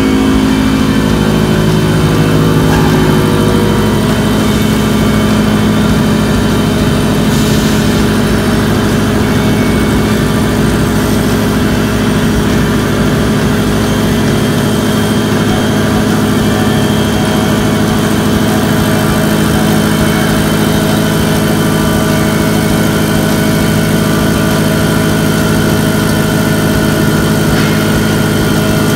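Walter indexable 45° chamfer milling cutter with tangential LNHU inserts, driven by a horizontal milling spindle, cutting a chamfer along the edge of a metal workpiece: a loud, steady machining hum with several held low tones.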